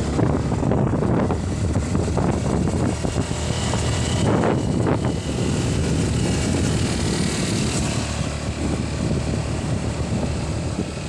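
A motor vehicle running steadily on the move, with wind rumbling on the microphone.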